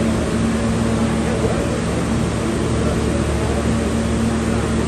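R160A subway car running between stations in the tunnel, heard from inside the car: a steady rumble of wheels and track with a constant low hum.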